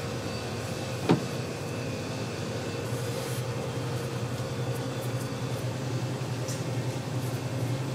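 Steady low hum of kitchen machinery such as a ventilation hood or appliance, with one sharp click about a second in and a few faint ticks.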